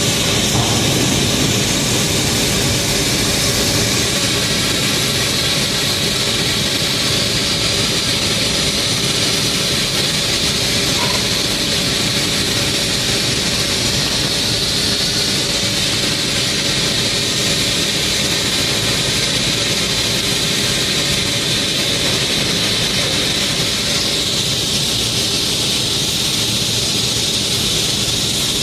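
Flux-cored arc welding on stainless steel: the arc gives a loud, steady hiss without a break.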